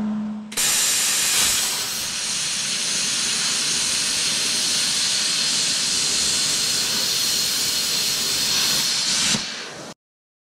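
MIG welder laying a bead on steel: a steady sizzling hiss that starts about half a second in and stops shortly before the end.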